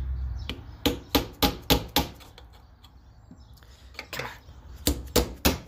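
Sharp metal taps of a hammer on a punch, knocking the old front seal out of a Chevy 454 timing cover clamped in a vise: a quick run of about five strikes about a second in, then a few more near the end.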